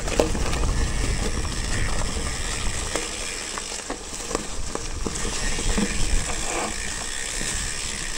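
Mountain bike coasting on a dirt trail, its rear freehub ratchet clicking, over a steady rumble with scattered knocks from the bike rolling over the trail.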